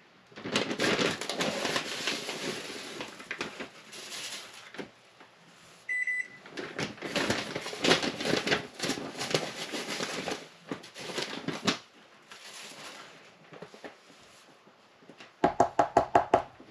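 Plastic bag of instant nonfat dry milk rustling as the powder is scooped out with a measuring cup and tipped into a bowl of water, with small scrapes and clicks of the cup. A short electronic beep sounds about six seconds in, and a quick run of knocks comes near the end.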